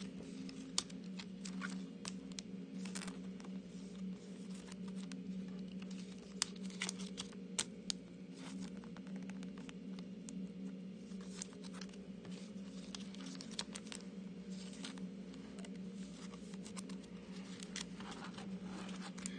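Thin plastic card sleeves crinkling and clicking in short, scattered bursts as trading cards are slid into them and handled, over a steady low hum.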